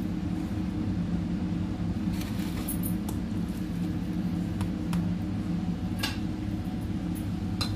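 A steady low hum, with a few faint light clicks scattered through it.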